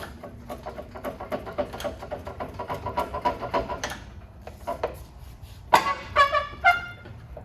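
Metal squeaking and clicking as the engine and transmission are worked loose: a run of quick, rhythmic clicks, then several short, loud, high squeals about six seconds in.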